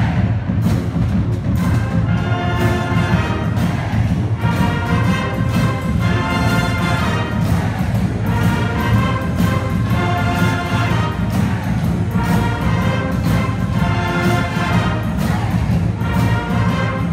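A large school band playing: brass and saxophones sounding full held chords over a steady beat of bass drum hits, with the echo of a gymnasium.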